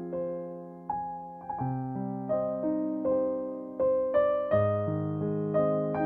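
Slow background piano music: single notes and chords struck every second or so, each ringing and fading.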